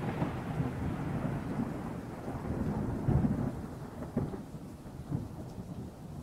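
Thunderstorm sound: steady rain with low rolling thunder, swelling to its loudest rumble about three seconds in.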